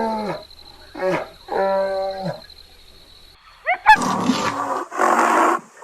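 A series of animal calls: two long pitched calls that drop in pitch at the end, with a short call between them. After a pause come a few quick rising chirps, a sharp click, then two rough, noisy calls.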